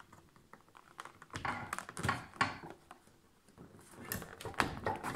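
Clicks and rustling of decorative garden windmill petals being handled and their ends pushed into the windmill's hub, in two short bursts: about a second and a half in and again near the end.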